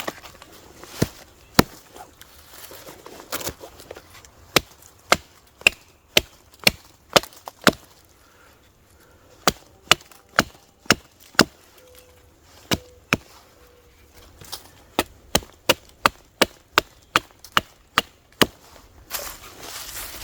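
Hatchet chopping wood: runs of sharp, evenly paced blows, about two a second, broken by short pauses.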